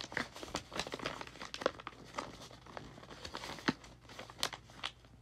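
Sheet of paper being folded and creased by hand into a paper airplane: irregular rustling and crinkling with a few sharp crackles as the folds are pressed down.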